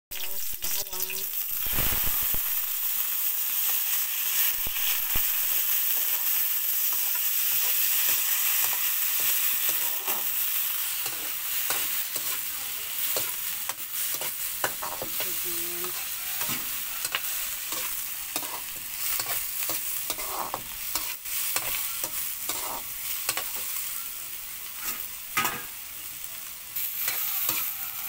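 Shrimp frying in hot oil in a steel wok, with a steady sizzle that is strongest in the first half and eases later. A slotted metal spatula repeatedly scrapes and knocks against the wok as the shrimp are stirred.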